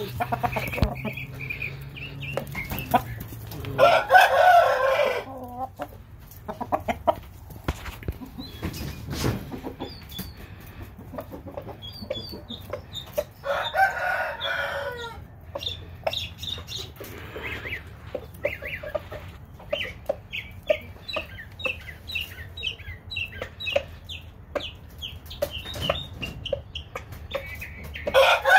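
Roosters crowing: a long call about four seconds in and another about fourteen seconds in, with a third starting at the very end. Between the crows, a quick run of short, high clucking calls.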